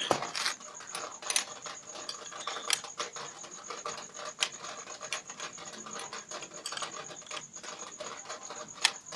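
Wrench clinking and scraping on the nuts and bolts of a hydraulic ram pump as loose ones are tightened to stop a leak: irregular metal clicks and scrapes.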